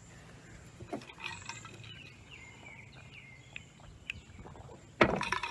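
Quiet outdoor ambience with faint birdsong of thin gliding whistles, then a loud bump near the end, followed by a second one.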